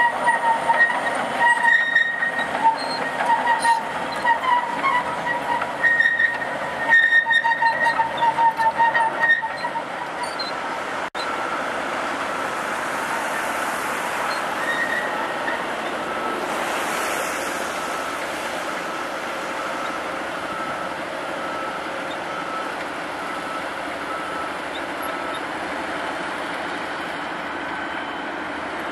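Cat D6R LGP crawler dozer working, its tracks squealing at a steady pitch in pulses over its running engine. After a cut about eleven seconds in, the sound turns more even, with a fainter steady squeal.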